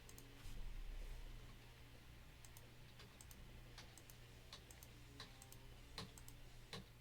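Faint, scattered clicks of a computer mouse and keyboard, a few a second, over a steady low hum.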